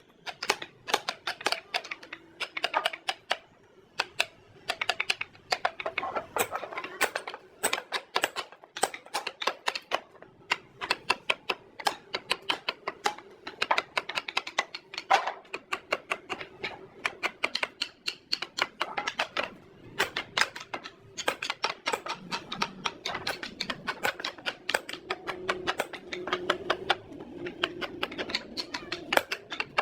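Rapid, irregular sharp taps and clicks, several a second, over a faint steady hum.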